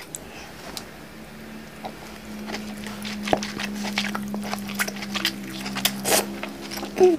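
Close-miked eating sounds: wet smacking, chewing and slurping as a person eats king crab meat dripping with a white dipping sauce, over a steady low hum. The clicks and smacks come thicker from about two seconds in, and the loudest comes near the end.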